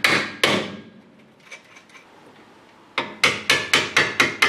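Hammer blows on metal, driving the rear strut rod bolt of a C3 Corvette out of its mount. Two ringing blows at the start and a pause with a few light taps, then a fast run of about four blows a second from about three seconds in.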